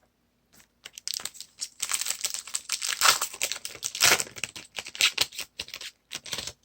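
A baseball card pack's wrapper being torn open and crinkled by hand: a dense run of crackling and sharp crinkles starting about a second in and stopping just before the end.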